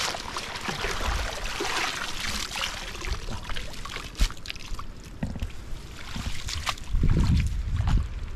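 Shallow floodwater splashing and sloshing around a hand net being worked through it, with a sharp knock about four seconds in and low rumbling near the end.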